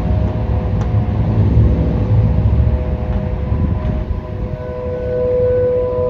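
Distant Federal Signal Thunderbolt 1000 and T-128 outdoor warning sirens sounding a steady alert signal together. Their overlapping tones hold a level pitch and swell louder about five seconds in, over a low rumble.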